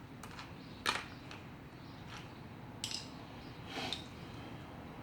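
Small metal parts and tools being handled during lawnmower disassembly: three sharp clicks and knocks, about a second in, near three seconds and near four seconds.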